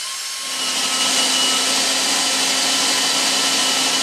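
Cordless drill boring down through two stacked wood blocks. The motor is speeding up at the start, then runs steadily at full speed as the bit cuts through the wood.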